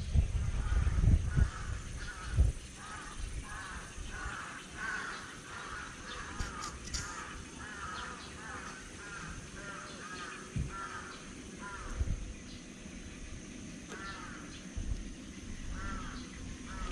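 Kitten mewing over and over in short, high calls, about two a second, pausing briefly after about twelve seconds before starting again. A few soft low thumps also sound, the loudest near the start.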